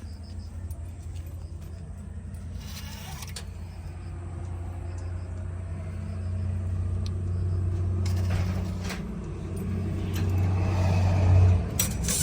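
Heavy diesel machine engine running steadily. It grows louder over the middle of the stretch, as under load, then drops off sharply about a second before the end. Brief rushing, scraping noises come three times.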